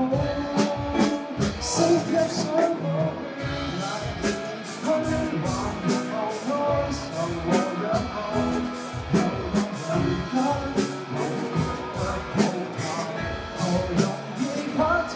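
Pop-rock band music with a drum kit keeping a steady beat under guitar.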